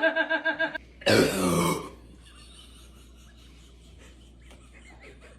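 A person burping up gas from gulped Sprite: a long, pulsing burp ends just under a second in. A shorter, harsh burp falling in pitch follows at about a second.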